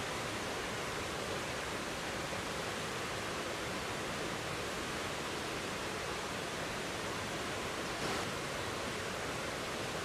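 Rushing water of river rapids and a waterfall: a steady, unbroken hiss and rush of water running over rocks.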